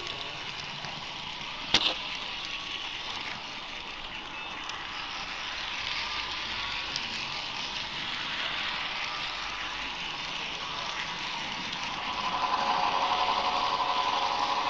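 HO-scale model railroad layout running: a steady hiss with one sharp click about two seconds in. Near the end, the whine of a model locomotive's small electric motor comes in and grows louder.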